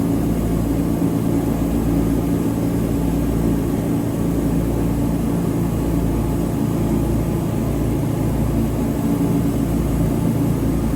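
Wood-Mizer portable sawmill's engine running steadily at a constant speed.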